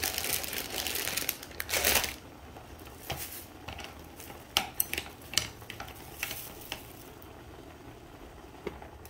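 Crinkly rustling of packaging for about two seconds, loudest near the end of that stretch, then a scatter of short, light clicks and taps as wooden chopsticks are handled.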